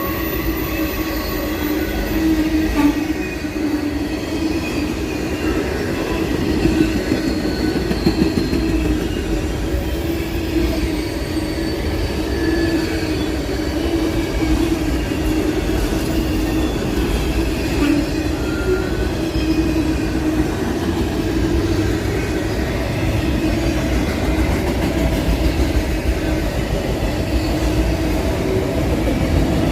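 CSX freight train rolling past with a steady rumble of wheels on rail. Short high-pitched wheel squeals come and go.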